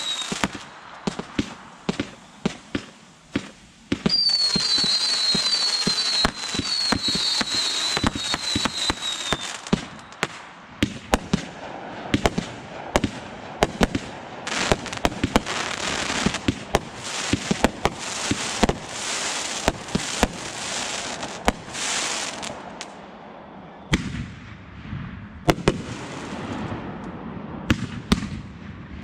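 Aerial fireworks going off: a rapid string of sharp bangs and pops over a steady crackling hiss, with a run of short falling whistles about four seconds in.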